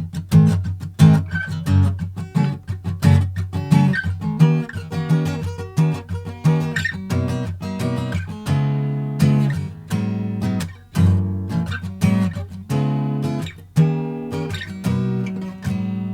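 Gibson J-45 Deluxe acoustic guitar, rosewood back and sides with a Sitka spruce top, playing a run of jazz chords, with the chords struck one after another and left to ring.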